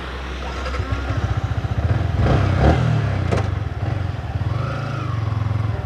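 Yamaha sports motorcycle's engine running while the bike stands still. It gets louder for about a second and a half around two to three seconds in, with two sharp knocks.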